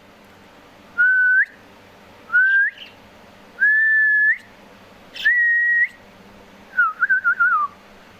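Parrot whistling: four clear held notes, each about half a second to a second long and each ending in a quick upward flick, then a wavering, warbled whistle near the end.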